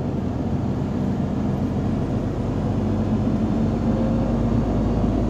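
Truck engine running steadily, with road noise, heard from the cab as it rolls along the highway.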